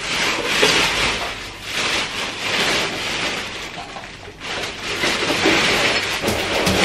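Black plastic bin bag rustling and crinkling in several swells as rubbish is pushed into it and the bag is shaken open.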